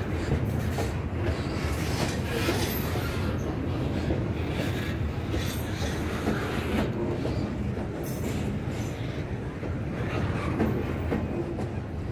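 Double-stack intermodal freight train rolling past: a steady rumble of steel wheels on rail, with irregular clacks as the cars pass over the rail joints.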